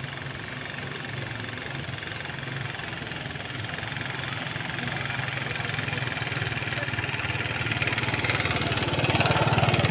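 A vehicle engine running with an even pulsing beat, growing louder toward the end as it comes closer.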